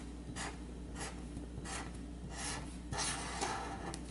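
Pen writing on a sheet of paper: a series of short, separate strokes, about one every half second, as the Korean syllable 봉 is drawn stroke by stroke.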